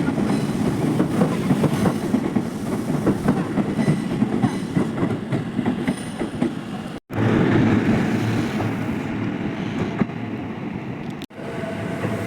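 Electric commuter train running past, its wheels clicking over the rail joints. The sound drops out abruptly for an instant twice, about seven seconds in and near the end.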